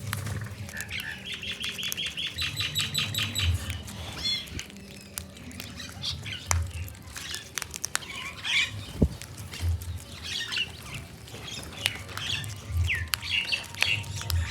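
Birds chirping and calling, with a rapid run of repeated high notes about a second in, and low thuds underneath.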